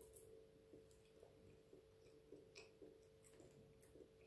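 Near silence with faint mouth sounds of someone eating a spoonful of soft fresh cheese: scattered small lip and tongue clicks over a faint steady hum.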